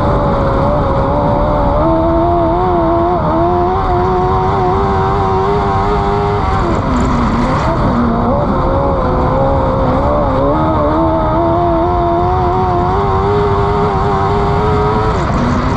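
Dwarf race car's engine heard from inside the cockpit at racing speed on a dirt oval. It is held at high revs, then drops off and climbs back twice, about six seconds in and near the end, as the car goes into the turns. Steady wind and tyre noise runs underneath.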